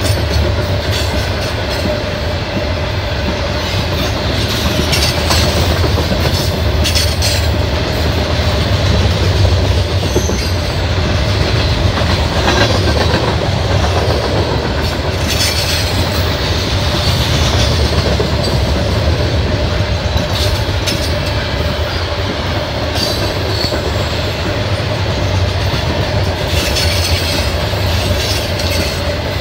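Loaded coal hopper cars of a freight train rolling past: a steady low rumble with wheel clickety-clack over the rail joints and, now and then, a brief high wheel squeal.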